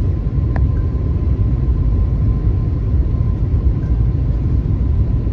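Steady, loud low rumble of an airliner in flight heard from inside the cabin, with a faint steady whine above it.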